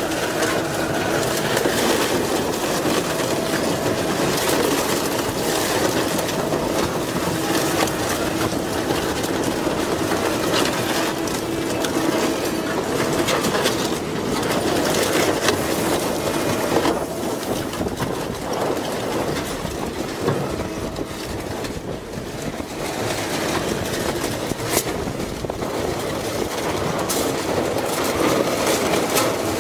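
Twin-shaft industrial shredder running under load, its rotors crunching and tearing through a small van's steel body, with frequent cracks and snaps over the steady drone of its drive. Near the end it is tearing into a caged plastic IBC tote.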